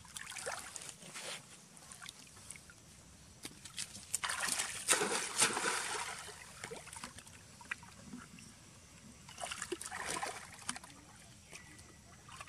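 Water splashing and sloshing as macaques swim and thrash in a pool. It comes in uneven surges, the loudest and longest about four to six seconds in, and another around ten seconds.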